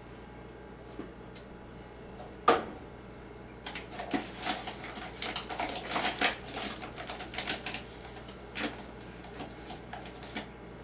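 Kitchen handling noises while measuring out flour: a single sharp knock about two and a half seconds in, then several seconds of quick clicking, tapping and rustling from ingredient packages and utensils on the counter.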